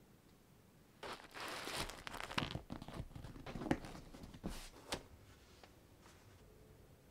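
Hands rubbing and rustling a leather case as it is folded and pressed around a box, with a few sharper clicks. It starts about a second in and dies away after about five seconds.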